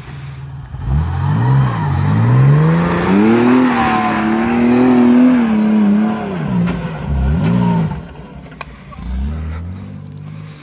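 UAZ off-road vehicle's engine revving hard under load on a steep hill climb. The revs rise about a second in, stay high for a few seconds, dip and surge again, then fall away near the end with one more short burst of throttle.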